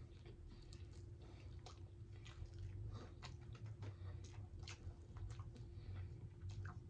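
A person chewing and biting fried pinfish: faint, irregular small crunches and clicks over a steady low hum.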